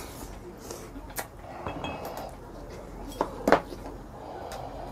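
A metal spoon clinking against a bowl and the stew pot: a few sharp clinks, the loudest about three and a half seconds in, among soft eating sounds.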